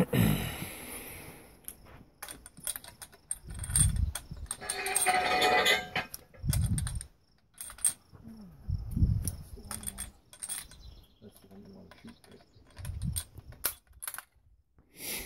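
Krag-Jorgensen rifle being loaded by hand: a long run of small metallic clicks and rattles as cartridges and the action are worked, with a few dull thumps of the rifle being handled.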